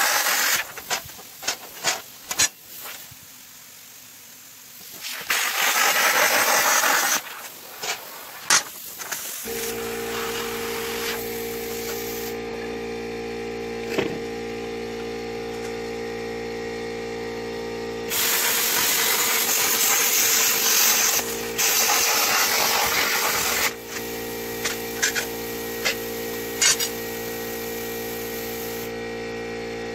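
Plasma cutter torch hissing in bursts as it cuts mild sheet steel. About a third of the way in, a small air compressor feeding it starts and runs on with a steady hum.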